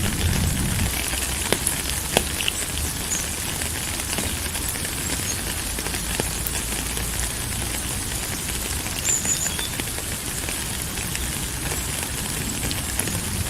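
Steady rain falling, an even hiss with scattered sharp drop clicks and a soft low rumble underneath. A brief high chirp sounds about nine seconds in.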